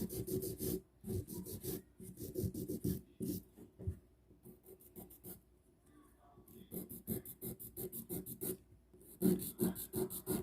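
A hand nail file rasping back and forth across a gel-coated fingernail in quick strokes. The strokes come in short runs with brief pauses, and there is a longer pause around the middle.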